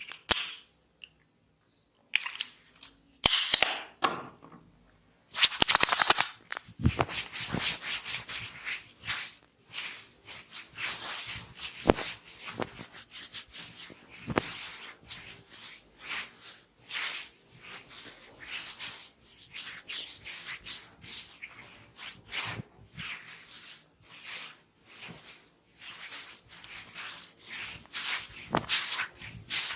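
Hair-cracking head massage: hands rubbing and working through the hair, with a dense run of short, sharp crackles and pats. The first couple of seconds are near-silent, then rubbing starts and the cracking builds.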